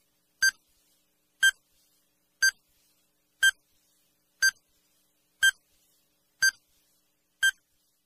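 Countdown timer sound effect: a short, high beep once a second, eight times, with silence between.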